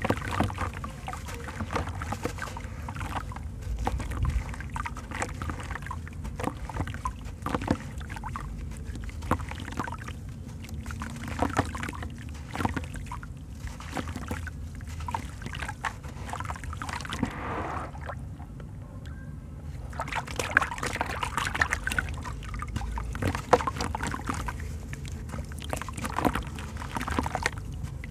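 A chunk of dry white sand-cement crumbled by hand over a basin of water: gritty crunching, with a patter and trickle of grains and crumbs falling into the water. There is a brief quieter lull about two-thirds of the way through.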